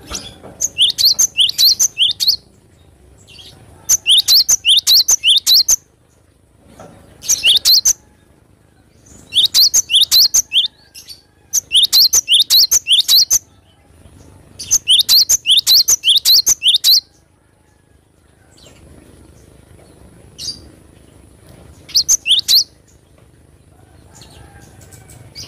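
Cinereous tit (gelatik batu) singing loudly in repeated bouts of quick, sharp, high notes. Each bout lasts a second or two, and short pauses separate them.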